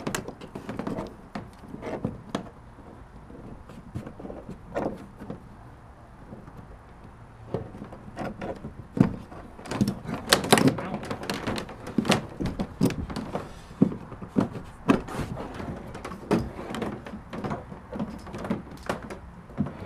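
Irregular knocks, clicks and rubbing as cable plugs and wires are pushed through a wiring hole in a plastic kayak deck and handled against the hull. The sounds are busiest about halfway through.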